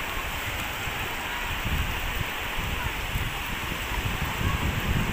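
Small waves washing and fizzing over a sandy shore in a steady hiss. Irregular low rumbling buffets come in from about two seconds in and grow stronger toward the end.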